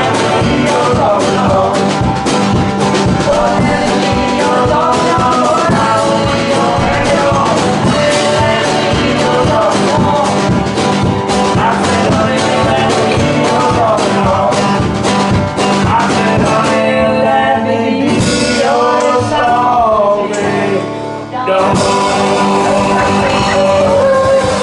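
A live acoustic band plays an upbeat bluegrass-style blues, with a woman singing lead over banjo, acoustic guitar, upright bass and drums. The band thins out and dips briefly about three-quarters of the way through, then the full sound comes back in.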